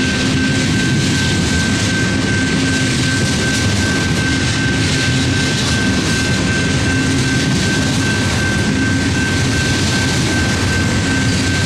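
Long freight train rolling steadily through a grade crossing: continuous wheel and rail noise with a constant high-pitched ring over a low diesel drone. Near the end the rear distributed-power locomotive, a GE AC4400CWM, comes up.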